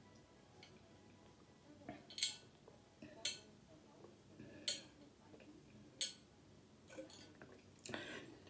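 A person gulping a drink from an insulated water bottle: a series of short, sharp swallows, about one a second.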